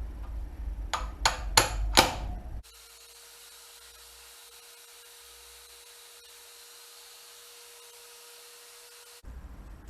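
Four sharp metal-on-metal hammer blows on a punch, knocking a worn wheel bearing out of a 1987 Suzuki DR200 hub; the bearing has so much play that the punch can hook its edge. After the blows the sound cuts abruptly to a faint steady hiss with a light hum until near the end.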